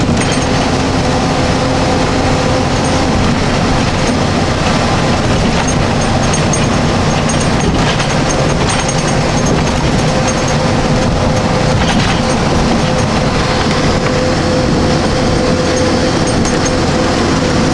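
Steady engine and road noise inside the cab of a large road vehicle cruising along a highway, with a constant droning hum and no let-up.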